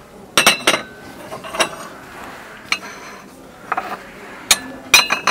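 Porcelain tableware clinking and knocking as pieces are handled and set down: sharp ringing clinks in small clusters, with a few about half a second in and a final cluster near the end.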